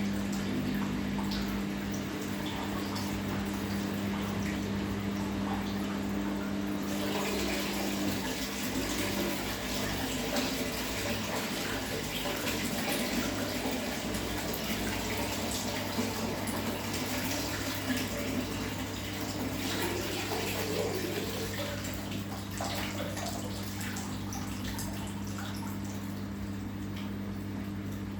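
Samsung front-loading washing machine taking in water: water running and splashing into the drum with a steady low hum, the rush of water growing louder about seven seconds in.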